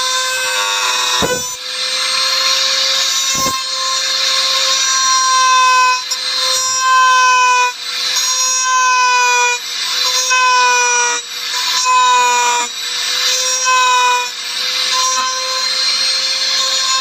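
Electric wood router running at high speed with a steady whine and a hiss of cutting, its pitch sagging slightly each time it bites into the wood, every second or two. Two knocks about one and three seconds in.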